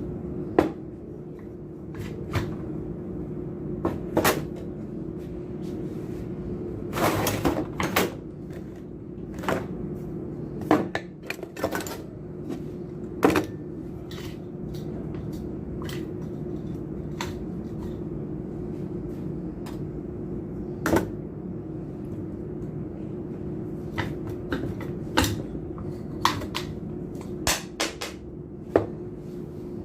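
Metal tools and pump parts clinking and knocking at irregular intervals, with a cluster of clatter around a quarter of the way in, over a steady low hum.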